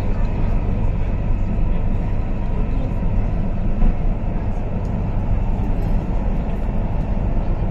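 Cabin noise of an MTR South Island Line S-Train running between stations: a steady low rumble from the train's running gear.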